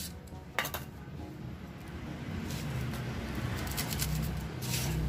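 Metal clinks and scraping as a rust-seized Honda Scoopy FI centre stand is forced by hand, its pivot freshly soaked with anti-rust lubricant, with a sharp clink about half a second in.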